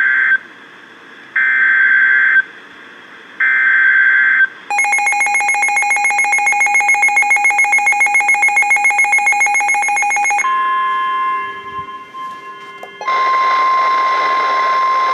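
Emergency Alert System activation for a severe thunderstorm warning. It starts with three short bursts of the SAME digital header, each about a second long and a second apart. Then comes a harsh, rapidly pulsing attention tone for about six seconds, then a steady single-pitch warning tone from NOAA Weather Radio, which grows louder for its last couple of seconds.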